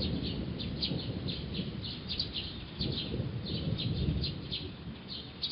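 Songbirds chirping in short, high, repeated notes, two or three a second, over a low rumble that swells about three seconds in.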